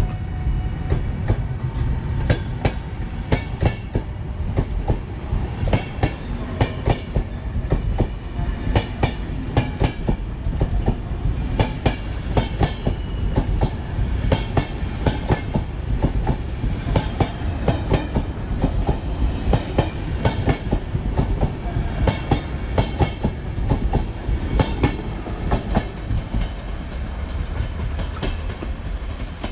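PKP Intercity passenger coaches rolling past, their wheels clicking over rail joints in an uneven run of sharp clicks over a steady low rumble.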